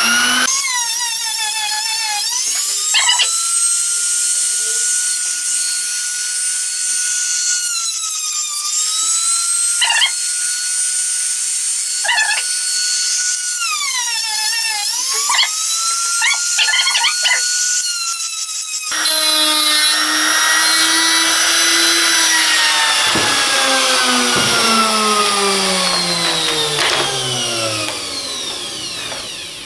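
Trim router running with a high steady whine as it cuts grooves into a melamine-faced MDF panel, its pitch dipping briefly twice, with a few short knocks. About two-thirds of the way through it is switched off and spins down, the whine falling slowly in pitch.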